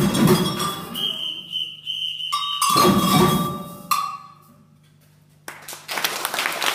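Samba band: a leader's samba whistle sounds long shrill blasts, shifting to a lower pitch midway, and the drums answer with a full hit at the start and another about three seconds in, each ringing out. After a brief near-silent pause, a steady clatter starts near the end.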